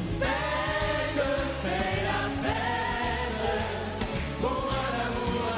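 Live French pop song: several voices sing long held notes together over a band with a steady pulsing bass line.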